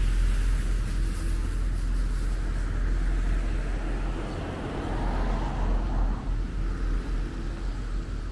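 Outdoor ambience: a steady low rumble under a hiss of noise, which swells for a couple of seconds in the middle.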